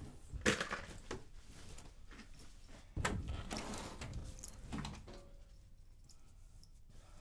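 Handling noises of a person moving about a small bedroom: a few sharp knocks and thuds with cloth rustling, busier in the first five seconds and quieter after.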